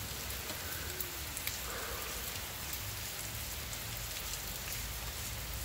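Steady rain falling, an even hiss with scattered close drops ticking through it.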